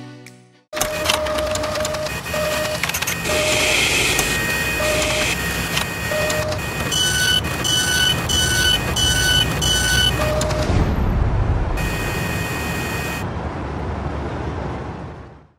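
Machine sound effect for an animated end card: steady mechanical whirring and clatter like a printer mechanism running, with short electronic beeps. Lower beeps recur through the first part, then a quick run of six higher beeps comes about two a second, followed by a heavier rumble before it all fades out.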